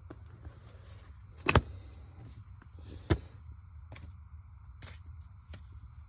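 Handling noises: a few sharp clicks and taps over a low steady hum, the loudest about a second and a half in and another about three seconds in, with fainter ticks after.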